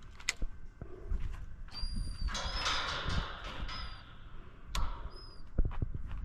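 A bird giving short, high whistled calls four times, over scattered clicks and knocks of handling and a low rumble.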